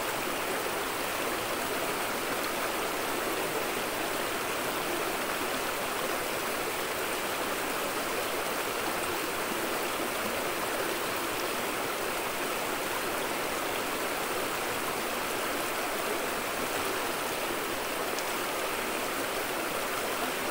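Shallow rocky river running over stones, a steady, even rush of water.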